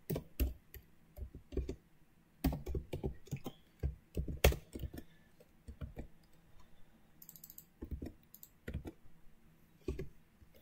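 Typing on a computer keyboard: irregular key presses in short runs and single strokes, a few louder than the rest.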